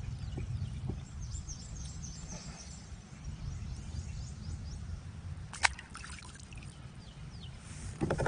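Wind rumbling on the microphone over quiet outdoor ambience with faint bird calls, and a single sharp click about five and a half seconds in.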